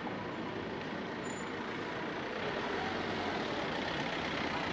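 A motor vehicle's engine running over steady street noise, growing slightly louder over the second half.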